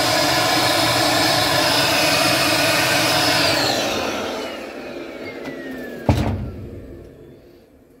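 Small vacuum cleaner running with a high steady whine as it sucks cut plastic and glue chips from around a washing machine's agitator shaft. It is switched off about three and a half seconds in, and its motor winds down with a falling whine. A single sharp knock comes about six seconds in.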